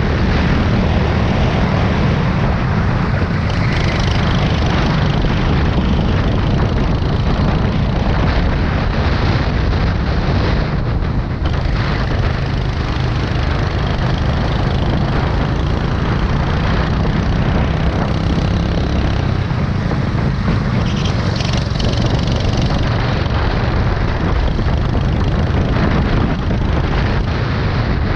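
Racing go-kart's engine running continuously at speed, heard from a camera mounted on the kart, with a heavy, steady low rumble of engine and wind noise.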